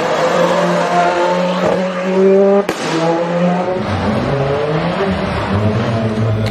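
Ford Escort WRC rally car's turbocharged four-cylinder engine revving hard under load, its pitch stepping up and down between steady notes. About two and a half seconds in the sound cuts abruptly to another run, with the engine at lower, changing revs.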